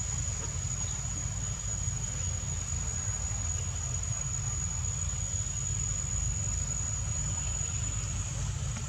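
Insects calling in one steady high-pitched note, over a constant low rumble.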